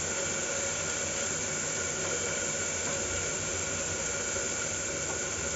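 Brinjal pieces frying in oil in a pan on a gas stove, giving a steady, even sizzling hiss.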